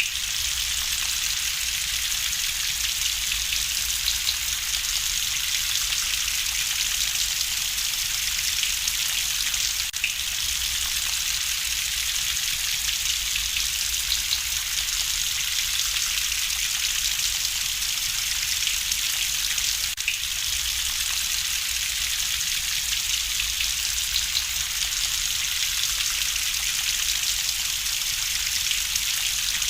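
Steady rain falling on surfaces, an even hiss with a low rumble beneath it. A few faint crackles, as from a wood fire, come through. The ambience repeats in a loop about every ten seconds.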